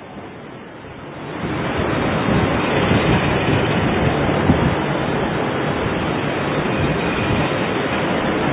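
A loud, steady rushing noise starts about a second in and then holds even.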